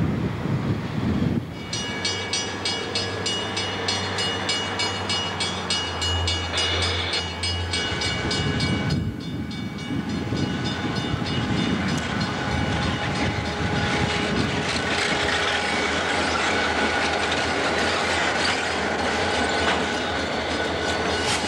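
Burlington Northern diesel freight trains passing close by: locomotives and double-stack container cars rumbling past, with wheels clacking over rail joints. Steady horn tones sound in the first part.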